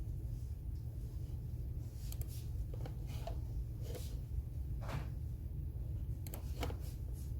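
A few sparse, irregular soft scratches and taps from someone working at a desk, over a steady low hum.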